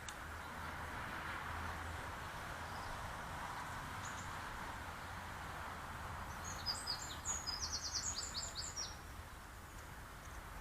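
A small bird gives a quick run of high chirping notes, about a dozen in two seconds, a little past the middle, over a steady outdoor background hum.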